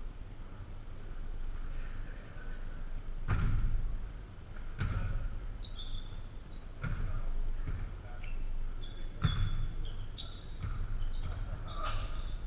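Basketball bouncing on a hardwood gym floor about five times, spaced irregularly, with short high sneaker squeaks from players running on the court.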